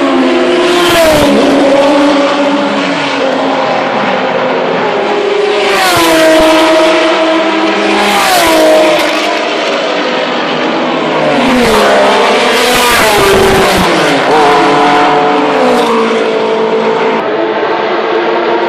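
Historic touring race cars passing at full speed one after another, about half a dozen of them. Each engine note drops sharply in pitch as the car goes by.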